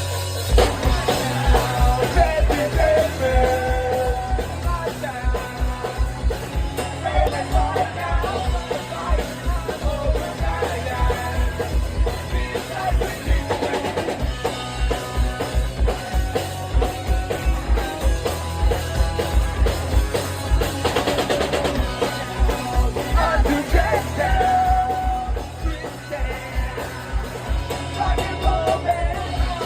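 Rock band playing live: the drum kit drives a steady kick-drum beat under singing.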